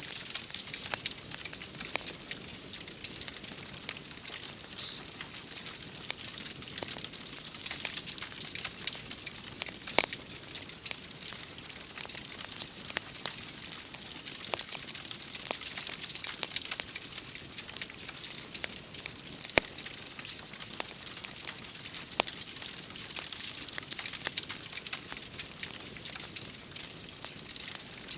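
Wood fire crackling, with irregular sharp pops and snaps over a steady rain-like hiss.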